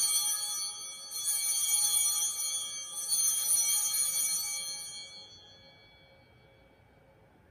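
Altar bells (small hand-rung Sanctus bells) ringing in three shakes, with high, bright tones, renewed about one and three seconds in and dying away after about five seconds. They mark the elevation of the consecrated host.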